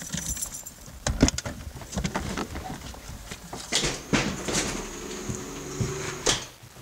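Indoor handling noises: scattered clicks and knocks, with a high drawn-out creak or squeal between about four and six seconds in.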